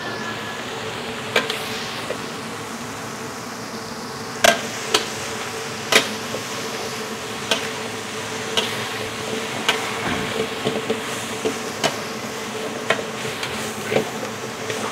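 Stir-frying vegetables and meat in a wok: a metal spatula knocks and scrapes against the wok at irregular intervals, about once a second, over a steady sizzle and a low hum.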